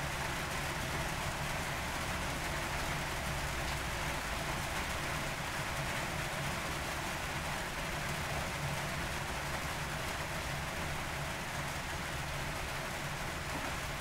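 Steady rain falling, an even unbroken hiss, over a low steady rumble underneath.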